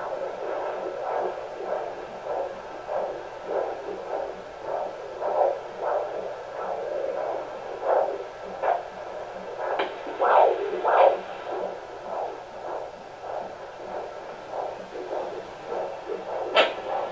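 Fetal heartbeat through a handheld fetal Doppler's speaker: rapid, evenly spaced whooshing pulses, about two and a half a second, over the whirling sound of blood flow in the placenta. A few pulses near the middle are louder.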